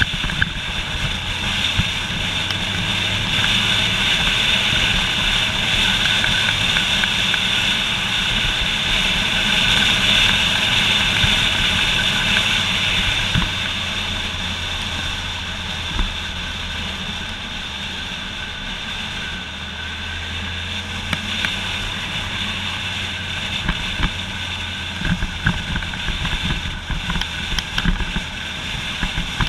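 Motorcycle engine running steadily under way, mixed with the rush of wind past the bike. It eases off a little about halfway through, and short sharp knocks crop up now and then.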